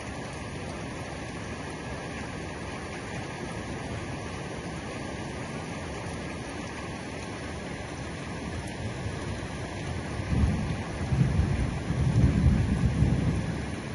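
Heavy rain falling steadily on the roof, with a low rolling rumble of thunder that swells about ten seconds in and fades near the end.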